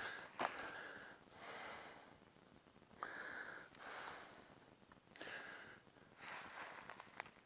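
A person breathing hard while walking, a loud breath every second or so, with footsteps and small crunches in dry leaf litter.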